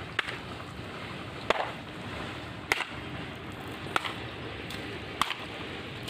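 Pumped water rushing steadily through a canal, with a sharp slap about every second and a quarter as a length of rubber hose is whipped against the water.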